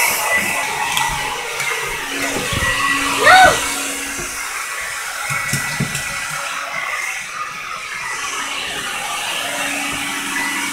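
Hand-held hair dryer running with a steady hum and airy hiss. A short high-pitched cry rises and falls about three seconds in.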